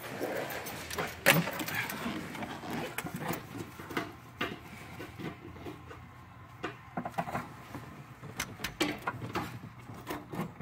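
Scattered light clicks, knocks and rattles of a fuel pump assembly and its plastic fittings being handled and worked into the fuel-tank opening.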